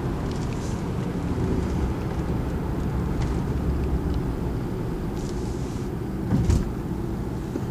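BMW car driving, heard from inside the cabin: a steady low rumble of engine and tyre noise, with one brief thump about six seconds in.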